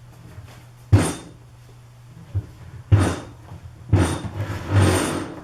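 Heavy 3/4-inch MDF being handled and set onto a table: sharp wooden knocks about a second in, at three seconds and at four seconds, then a longer scraping rub near the end.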